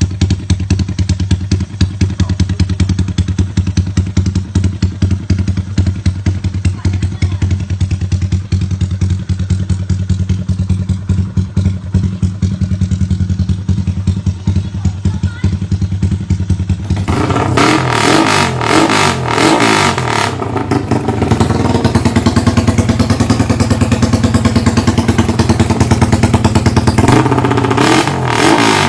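Yamaha LC135 motorcycle's 135 cc single-cylinder four-stroke engine running steadily at idle, then about seventeen seconds in, louder, with the throttle blipped so the pitch rises and falls several times.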